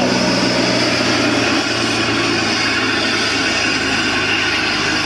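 Air ambulance helicopter's turbine engines running on the ground with the rotor turning: a steady high whine over a constant low hum, dropping slightly in loudness a little under two seconds in.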